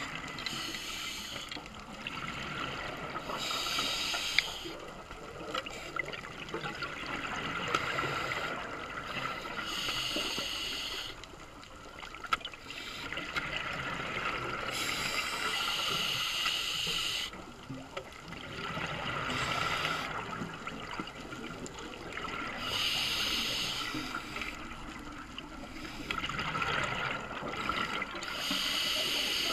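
Scuba regulator breathing underwater: exhaled air bubbles out in a burst about every five to seven seconds, six times, over a steady underwater hiss.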